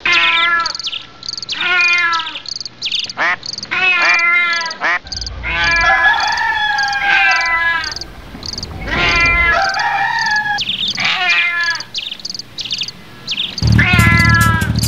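Repeated chirping animal calls, each falling in pitch, over a high insect chirping that pulses about three times a second. Near the end a rally car's engine comes in underneath, a low idle.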